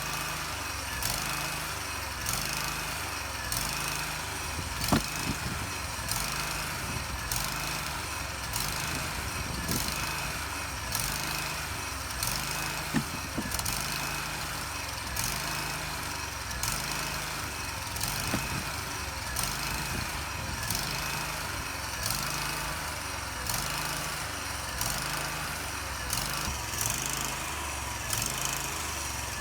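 A sawmill's engine running steadily, with a low pulse repeating about once a second.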